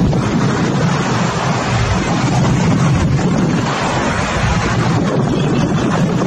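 Steady roar of a twin-engine jet airliner landing on a runway, with wind buffeting the microphone.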